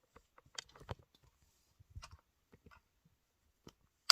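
Lego plastic pieces being handled and pressed together, giving scattered small clicks, with one sharp louder click near the end.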